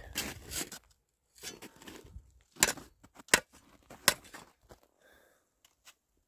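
Boots crunching and scraping on frozen snow and ice: a string of irregular sharp crunches, the loudest in the middle, dying away near the end.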